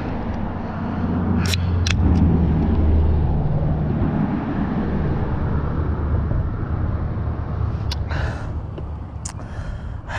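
Motor vehicle passing close by: a low engine rumble that swells over the first few seconds, then slowly fades. A few sharp clicks come about a second and a half in, at two seconds, and twice near the end.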